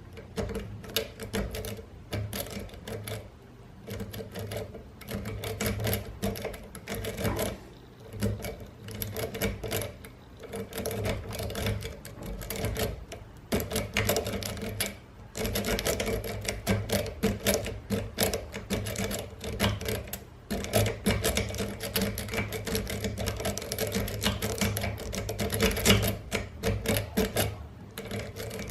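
Metal rake being worked in and out of a dimple lock's keyway: rapid metallic clicking and scraping as the rake passes over the pins, in bursts of a few seconds with short pauses.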